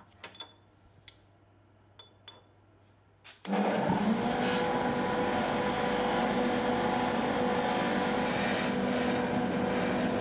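A few faint clicks, then a bench grinder starts suddenly about a third of the way in and runs with a steady motor hum. A steel ring is held against the spinning wheel, grinding its edge.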